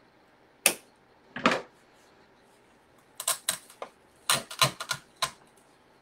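Sharp clicks and rustles of artificial flower stems and leaves being handled and pushed into a foam-filled flower container: two single clicks in the first two seconds, then two quick runs of clicks.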